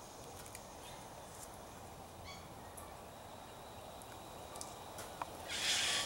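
A parrot gives one brief, harsh squawk near the end, over a quiet background with a few faint clicks.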